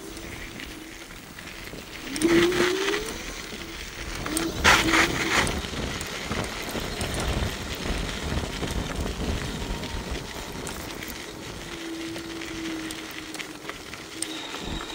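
Bluetran Lightning electric scooter riding along a path: a steady motor whine that rises in pitch as it speeds up about two seconds in, over wind and tyre rush, with two louder rushes of noise around two and five seconds in.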